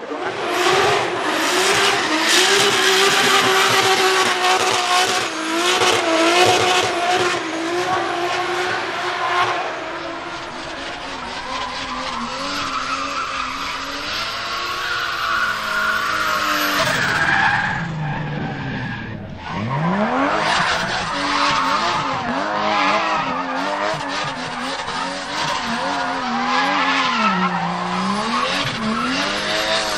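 Drift car at high revs, the engine note wavering up and down while the tyres squeal and skid; a little past halfway the revs fall sharply, dip for a moment, then climb back up.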